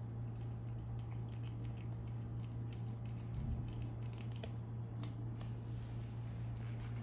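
A cat chewing and eating rice mixed with tuna: many faint, quick, wet mouth clicks, with a soft bump about halfway through, over a steady low hum.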